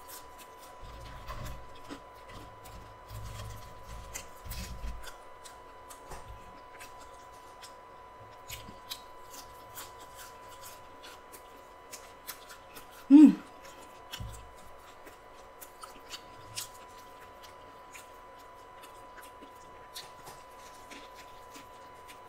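Chewing and biting into a crispy fried chicken sandwich, with small crisp crackles throughout. About halfway through there is one brief, louder sound with a pitch to it.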